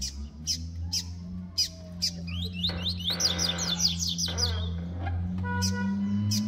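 Brown-plumaged double-collared seedeaters (coleiros) calling in competition: sharp high chip notes about twice a second, then a fast run of twittering, down-sliding song notes in the middle. A steady low hum runs underneath.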